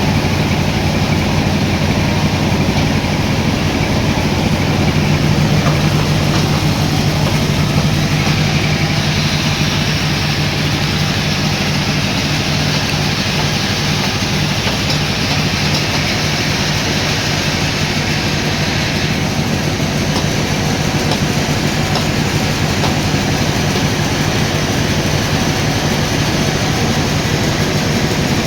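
Sawmill machinery running steadily: a constant low hum under a dense, harsher noise that grows a little stronger for about ten seconds in the middle.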